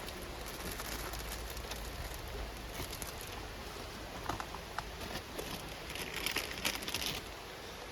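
Rain pattering steadily, with a few sharper drop ticks about halfway through and a brief louder rustle about six seconds in.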